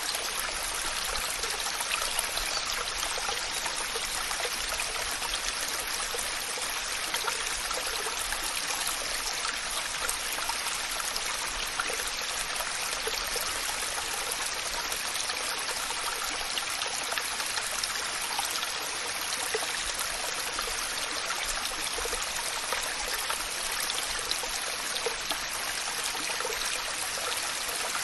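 Waterfall: water falling and splashing steadily in an even, unbroken rush, with little deep rumble.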